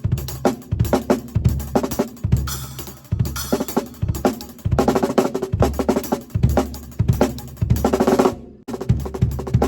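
Drum kit played in a sound check: a fast run of snare and bass drum hits with cymbal crashes, breaking off briefly near the end before starting again.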